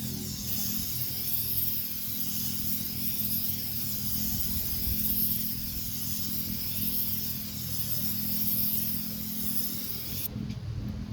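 A steady mechanical hum with a high hiss over it; the hiss cuts off abruptly near the end while the hum continues.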